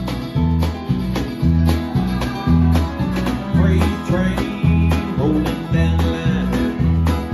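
Live band playing an upbeat country-rock tune: acoustic guitar, electric bass, drums and keyboard, with the bass and drums keeping a steady beat.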